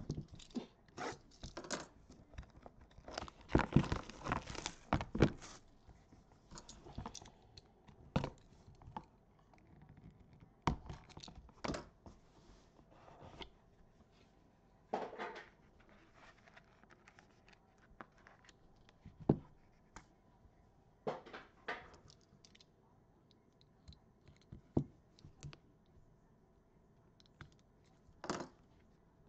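Plastic shrink wrap being torn and crinkled off a trading-card hobby box, loudest in a dense burst a few seconds in, followed by scattered rustles and light clicks of the box and cards being handled.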